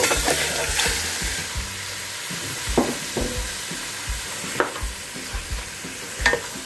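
Raw chicken thighs and carcass pieces sizzling as they drop into hot lard in an aluminium pot: the frying starts suddenly and is loudest in the first second, then settles to a steady sizzle. A few short knocks of a spoon against the pot come as the meat is stirred.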